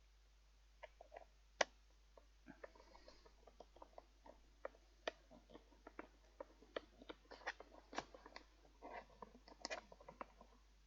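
Faint, scattered clicks and light knocks of hands working on a fan heater's plastic casing and parts, with a sharper knock about a second and a half in and another near eight seconds.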